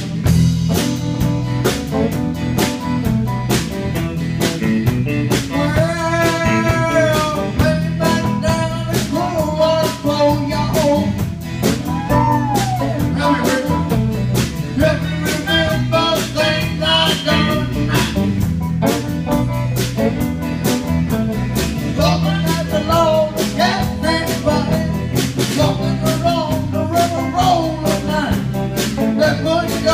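Live band playing a country-rock song: a teenage boy singing lead through a microphone and PA over drum kit, electric guitar, acoustic guitar and fiddle, with a steady beat.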